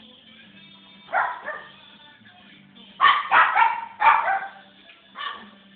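A dog barking in bursts: two barks about a second in, a quick run of about five from three seconds in, and one more near the end. Background music plays faintly underneath.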